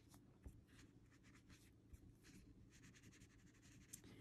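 Faint, quick strokes of a colouring pencil scratching back and forth on paper.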